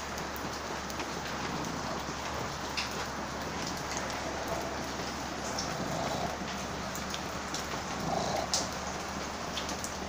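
Steady rain falling, with scattered drops tapping and dripping close by.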